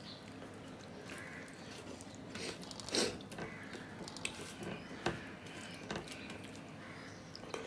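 Eating by hand: fingers squishing and mixing rice with a thin curry in a steel plate, with scattered soft wet clicks and smacks, the loudest about three seconds in and another about five seconds in.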